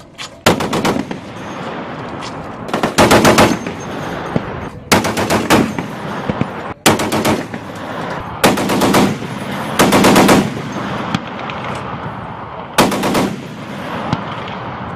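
M2 .50-calibre heavy machine gun firing short bursts, about seven in all, one to two seconds apart, each a rapid string of shots.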